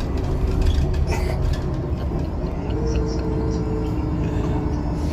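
Bus engine and road noise heard from inside the cabin: a steady low rumble.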